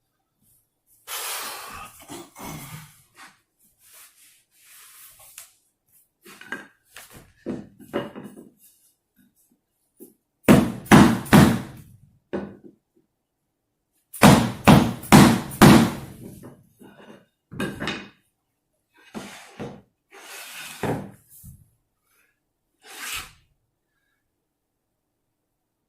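Series of knocks on hardwood as a replacement maple floor plank is worked into place, including two quick runs of about five blows each, a third and halfway through, with scattered single knocks between.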